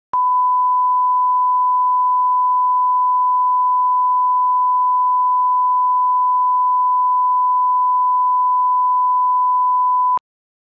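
Steady 1 kHz sine-wave reference tone, the line-up test tone used to set audio levels on a video master: a single pure pitch held unchanged for about ten seconds, then cut off abruptly.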